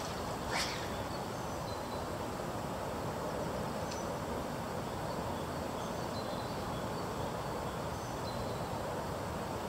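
Steady rushing of a swollen, fast river, with one brief sharp swish about half a second in as the spey line rips off the water on the cast.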